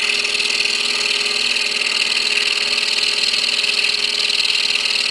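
Excalibur scroll saw running with its blade cutting wood, fed slowly along a long straight line. It makes a steady hum under an even, higher cutting noise.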